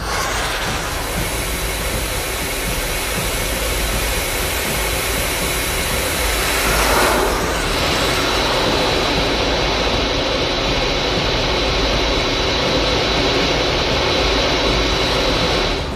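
Steady jet-engine roar with a thin high whine, starting and stopping abruptly. About seven seconds in a whoosh sweeps through, and after it the sound is duller.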